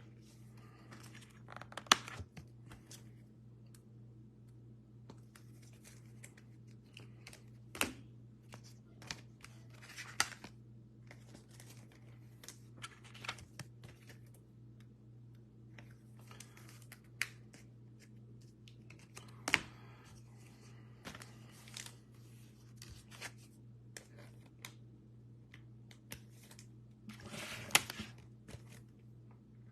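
Hands handling trading cards and their packaging: scattered rustling, crinkling and sharp little clicks, the sharpest about 2, 8, 19 and 28 seconds in. A steady low hum runs underneath.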